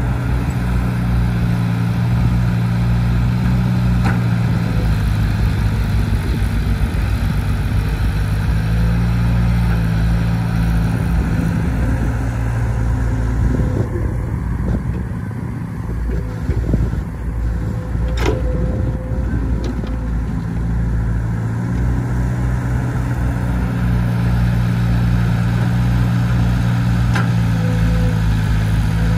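Crawler excavator's diesel engine running steadily, its note easing off for several seconds mid-way and then building again. A few sharp metallic clanks stand out, the loudest about two-thirds of the way through.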